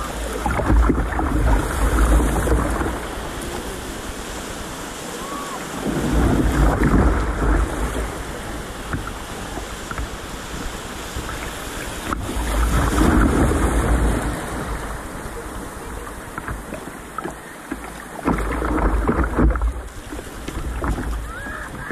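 Small surf waves rushing and splashing around a kayak's bow, in four surges about six seconds apart, with wind buffeting the microphone.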